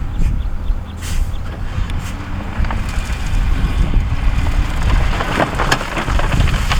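Heavy earthmoving machine's diesel engine running with a deep steady rumble, with rock and gravel clattering and crunching about five seconds in.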